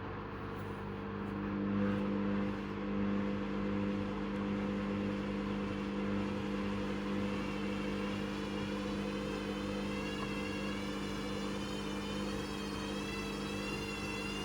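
Hoover Custom Vision washing machine running, its motor turning the drum with a steady hum. A higher whine that wavers in pitch comes in about halfway and grows slightly louder toward the end.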